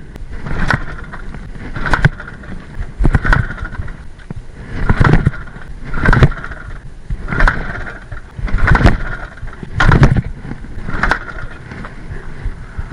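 A Balkan 50's 50 cc two-stroke engine being kick-started again and again: about nine kicks a little over a second apart, each a short burst of the engine turning over. It never catches and runs, so it fails to start.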